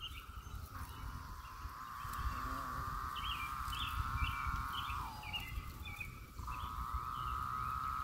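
A chorus of Brood X periodical cicadas makes a steady high buzzing drone. The drone breaks off a little after five seconds in and picks up again about a second later. Short high chirps sound above it in the middle of the stretch.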